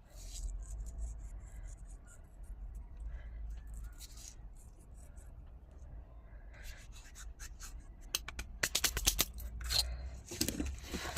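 Pieces of scrap glass being handled: faint scraping at first, then a quick run of short, sharp clicks and scrapes from about two-thirds of the way in.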